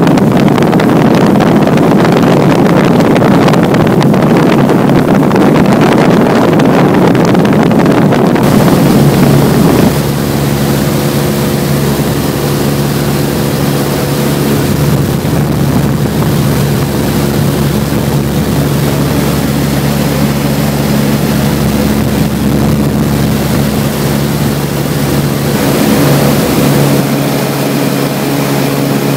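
Light aircraft's piston engine and propeller droning steadily in flight. For the first ten seconds or so a heavy wind rush over the microphone covers it, then the engine's even hum comes through clearly.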